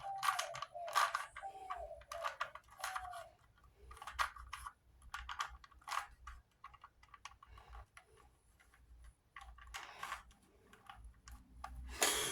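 Rubik's Cube faces being turned by hand: a quick, irregular run of small plastic clicks and rattles, in several short bursts.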